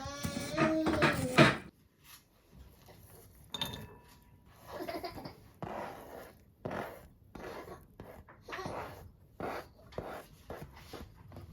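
A brief high-pitched cry at the start, then a run of short, soft scrapes and rustles of dishes and utensils being handled.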